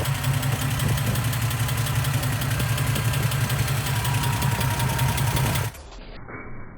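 Toyota FJ60 Land Cruiser's freshly rebuilt 2F inline-six engine idling steadily with a fast, regular ticking knock that the owner questions as possible engine knock. The engine sound cuts off abruptly near the end, leaving a much quieter sound.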